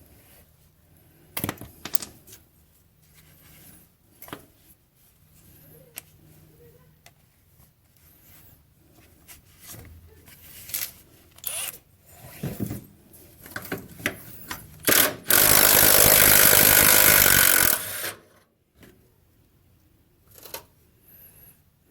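Scattered clinks and clanks of metal tools and parts being handled, then an impact wrench hammers on a bolt for about three seconds and stops suddenly.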